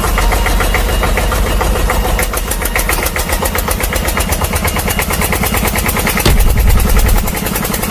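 Engine running steadily with a fast, even pulse. It swells louder and deeper about six seconds in, then drops back about a second later, like a diesel taking load.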